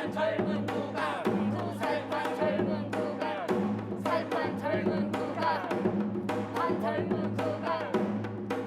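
Janggu, the Korean hourglass drum, struck in a quick rhythm over music with a steady low drone and a wavering melody.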